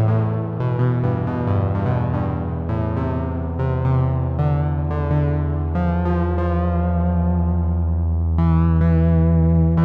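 Synthesizer playing sustained electronic tones over a steady low drone, with new notes struck every second or so, a spacey sci-fi effect.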